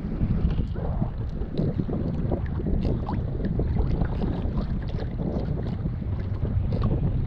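Wind buffeting the microphone on a kayak, a steady low rumble, with frequent small ticks of water dripping and splashing against the boat.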